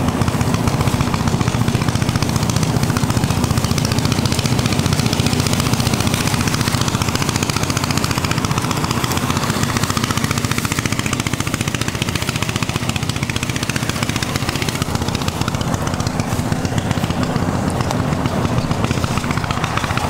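A small engine running steadily at a constant speed, a rapid, even chugging.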